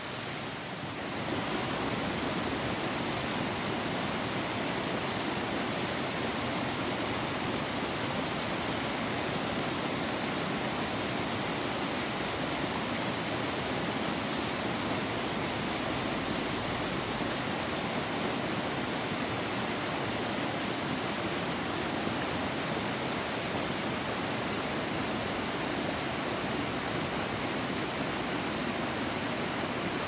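Mountain creek rushing over rocks and stones, a steady even rush of running water that gets louder about a second in.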